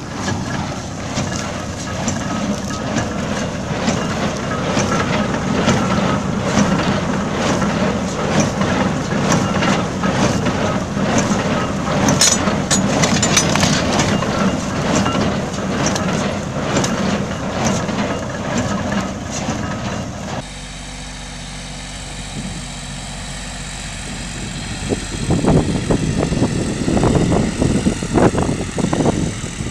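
Farm machinery working in a straw field: an engine running with a dense, steady mechanical clatter. About twenty seconds in it changes abruptly to a compact tractor with a rear rotary tiller, its engine running more quietly, then surging louder several times near the end.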